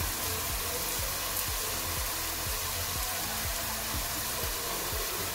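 Chopped onions sizzling steadily as they fry in hot mustard oil in a kadhai, under soft background music with a low beat.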